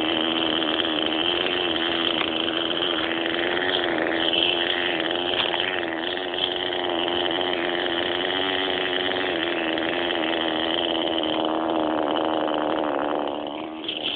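Hirobo Shuttle R/C helicopter's small engine running steadily, heard close up from a camera mounted on the helicopter. It is a steady buzzing drone with slight wobbles in pitch, dropping away near the end.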